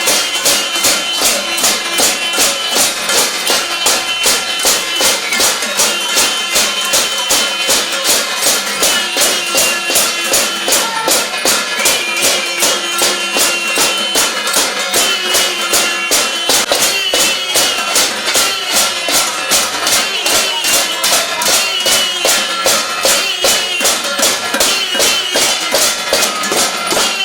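Steel plates beaten and bells rung in a steady rhythm, about two beats a second, with metallic ringing over the strokes. It is a collective noise made in thanks to essential-service workers.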